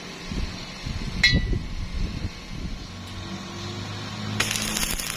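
Steel pieces being handled and knocked together, with one sharp metallic clank about a second in that rings briefly. A steady low hum follows, then about a second of dense crackling hiss near the end, which fits a stick-welding arc striking.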